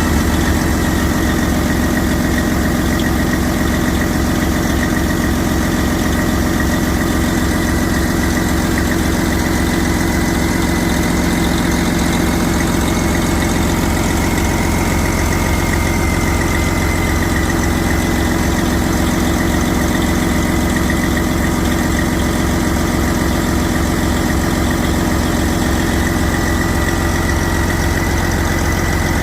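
Detroit Diesel Series 60 inline-six diesel engine idling steadily after a rebuild, with an even low pulse and a faint steady high whine over it.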